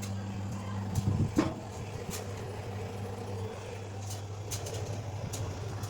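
Steady low electrical machine hum with a brief clatter of knocks about a second in.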